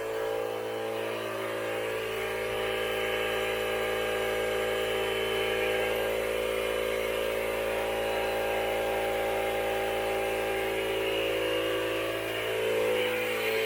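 Steady mechanical drone of a running motor, holding an even pitch with a slight waver near the end.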